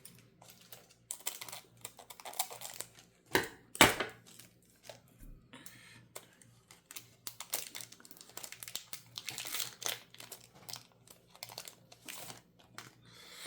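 Foil wrapper of a Pokémon TCG Surging Sparks booster pack crinkling and being torn open, in scattered irregular rustles with two sharper, louder crackles about three and a half and four seconds in.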